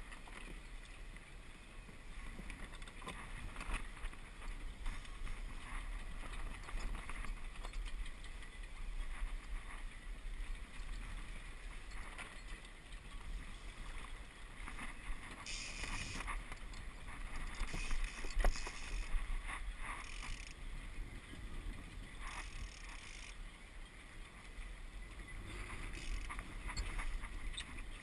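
Water sloshing and splashing against the hull of a small Walker Bay 10 sailing dinghy under way, with wind rumbling on the microphone. A few louder rushing bursts come past the middle.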